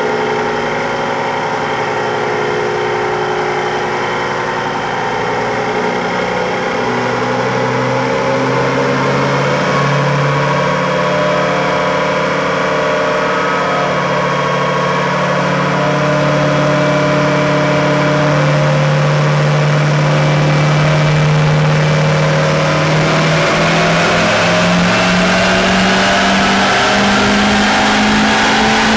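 L5P Duramax 6.6-litre V8 turbodiesel, fitted with an S369SXE turbo kit, running under load on a chassis dyno. Its note is steady at first, dips slightly a few seconds in, then climbs slowly and steadily through the second half as the engine pulls up through the rev range.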